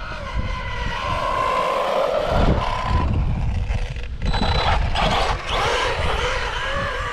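Arrma Big Rock 3S RC truck's brushless electric motor whining as it is driven flat out, the pitch shifting up and down, over a steady low rumble of wind on the microphone.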